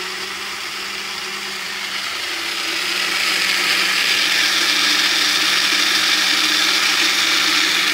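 Tribest personal blender running, its blades mixing a thick green smoothie. It gets louder about two to three seconds in, then holds steady.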